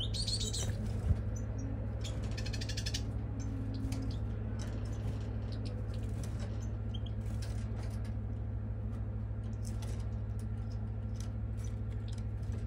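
Steady low hum with faint, scattered bird chirps over it, a short rapid trill about two seconds in, and a single click about a second in.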